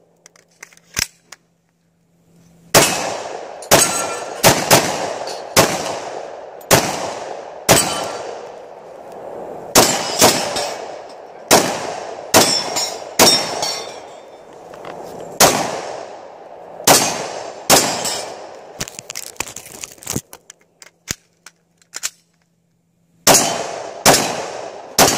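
Glock 20 10mm pistol firing a long string of about twenty rapid shots, each cracking sharply with a ringing tail, beginning about three seconds in. Near the end the shooting breaks off for about three seconds with only faint clicks, then resumes.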